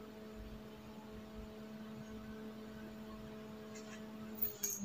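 Faint, steady low electrical hum, one tone with a couple of overtones, of unknown source. It cuts off about four and a half seconds in, followed by a light click or two.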